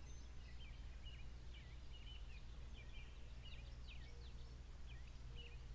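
Small songbirds calling and singing: many short, quick chirps and trills throughout, over a low steady background rumble.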